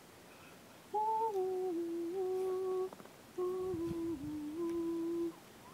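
A person humming a slow tune in long held notes, in two phrases with a short break between them.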